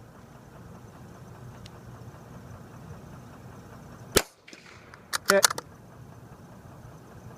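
A single sharp crack of a Savage Mark II .22 rimfire rifle about four seconds in, a shot at a steel plate that is called a hit.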